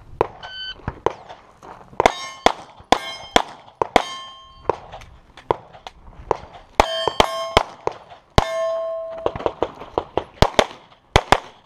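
Rapid pistol fire with steel targets ringing as they are hit; several hits leave a clear metallic ring. A short electronic beep from the shot timer sounds about half a second in.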